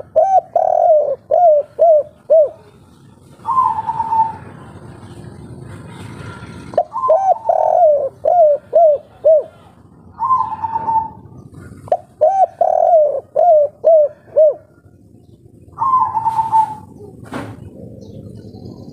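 Spotted dove cooing: runs of four or five short, quick coos alternating with single longer, higher coos, repeated about three times, in the song keepers call 'kuk 3'. A brief click near the end.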